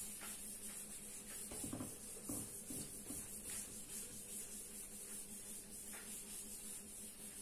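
Chalkboard being wiped with a hand duster: a soft, steady rubbing hiss from repeated back-and-forth strokes, with a few faint scrapes.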